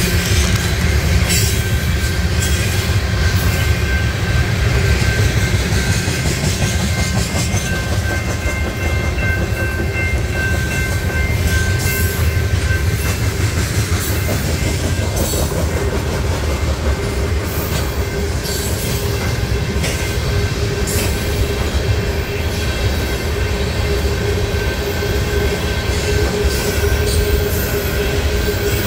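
A freight train of tank cars passing at speed, a steady rumble with the wheels clacking irregularly over rail joints and crossings. A thin high wheel squeal runs through the first half.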